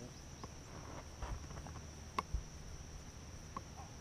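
Insect chorus: a steady high-pitched trill. A few faint clicks and knocks break through it, the sharpest about two seconds in.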